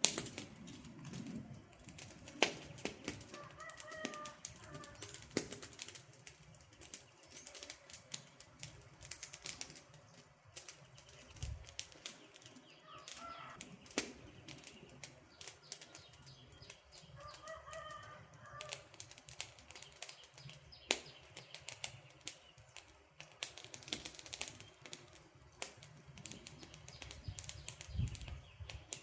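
Wood campfire crackling, with irregular sharp pops and snaps over a soft low hiss of burning logs. Faint bird calls come in briefly three times.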